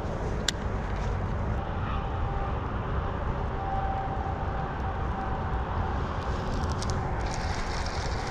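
Steady low rumbling background noise outdoors, with a single sharp click about half a second in.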